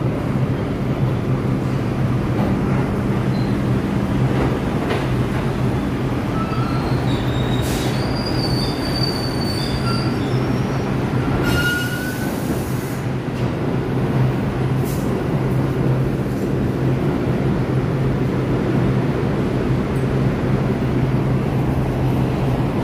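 New York City subway trains in an underground station: a steady low hum and rumble of the trains, with metal wheel squeal in thin high tones from about seven to twelve seconds in and a brief hiss just after.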